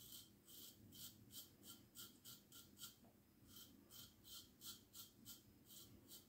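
Antique lather-catcher safety razor with a hand-honed wedge blade scraping through lathered stubble in short, quick strokes, about three a second, with a brief pause midway. The blade is cutting, but not well: it is not sharp enough.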